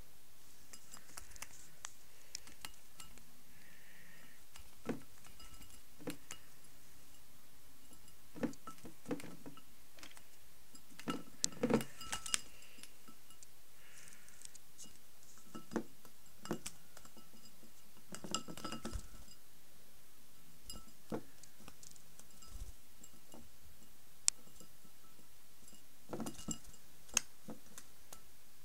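Lovebird bathing in a glass bowl of water: irregular light clinks and taps against the glass as it moves on the rim and dips in, some coming in short clusters.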